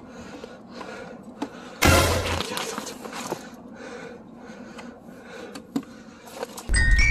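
A paper magazine crackling and rustling as it is forced into a train's seat-back pocket. There is a loud rustling crash with a deep thump about two seconds in, and another deep thump with a brief high ringing near the end.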